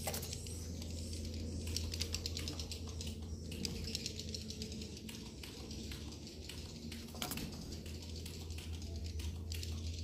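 Swiftlets clicking and chattering in a rapid, dry, irregular stream, over a steady low hum.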